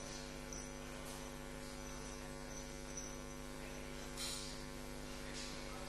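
Steady electrical mains hum on the audio line, an unchanging buzz with no speech, with a couple of faint brief hisses about four and five and a half seconds in.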